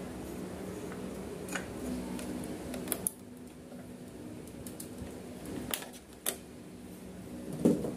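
Scattered plastic clicks and knocks from a stand fan being taken apart by hand: the blade spinner cap is worked off and a screwdriver works at the rear motor cover. The loudest knock comes near the end, and a steady low hum runs underneath.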